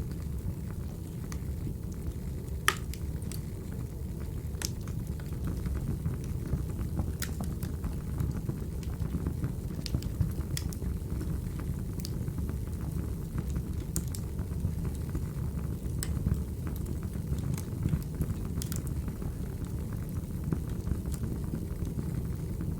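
Wood fire crackling: a steady low rumble with sharp pops every second or so, the loudest about three seconds in.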